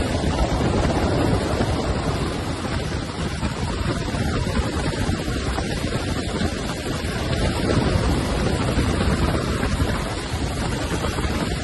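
Steady rushing wind buffeting the microphone of a camera in the open door of a hovering MH-60S Knighthawk helicopter.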